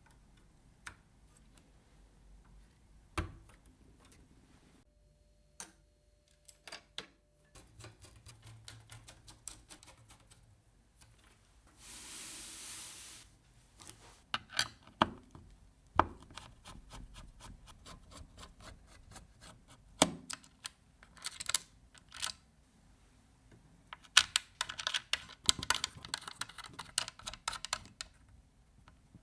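Scattered clicks, taps and rapid clattering of PC components being handled and fitted during assembly, with a brief hiss about twelve seconds in.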